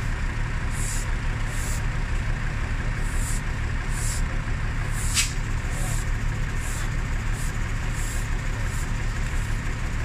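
Truck-mounted crane's engine running steadily, with the repeated scratchy swish of a broom sweeping the road about once or twice a second, and one sharp knock about halfway through.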